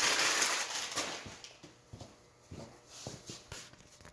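Brown kraft packing paper crinkling as it is pulled out of a cardboard box, loudest in the first second, then fading into scattered light rustles and taps.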